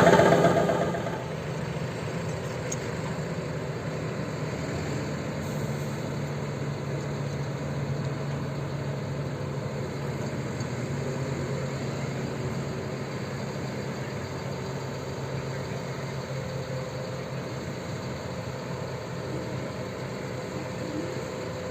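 Heavy vehicle engine running steadily with an even low hum. A louder engine note fades away within the first second or so.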